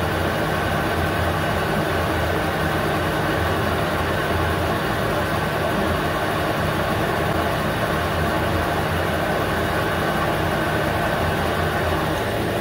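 CD-210V 8x16 mini metal lathe running steadily on its new servo motor drive, the spindle and chuck turning with a constant hum made of several steady tones.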